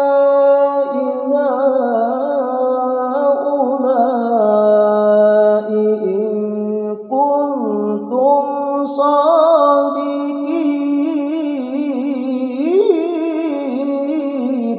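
A man reciting the Qur'an in melodic tilawah style, drawing out long held notes with wavering ornaments, with a brief break for breath about seven seconds in.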